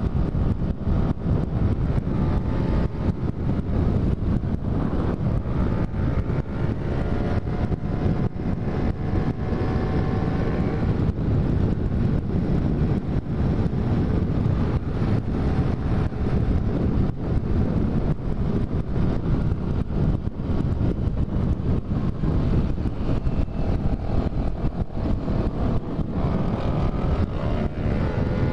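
Wind rushing over the microphone at highway speed, over the steady drone of a Kawasaki Ninja 300's parallel-twin engine. Near the end an engine note rises in pitch.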